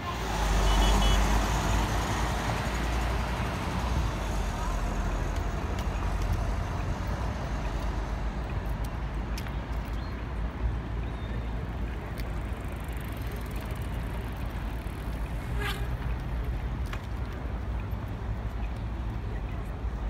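City street ambience: steady traffic noise with a low rumble, a little louder in the first two seconds, and a couple of faint clicks.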